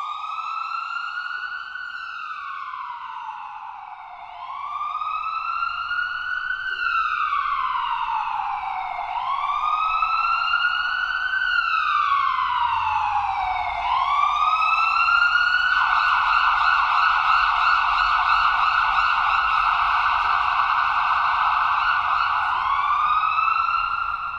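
Ambulance siren wailing, sweeping slowly up and down about every four to five seconds and getting louder as it approaches. About two thirds of the way through it switches to a fast warbling yelp, then goes back to the slow wail near the end.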